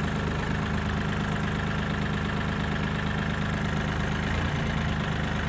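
Small diesel engine of a Bobcat compact tractor running steadily, with a shift in its pitch about four seconds in.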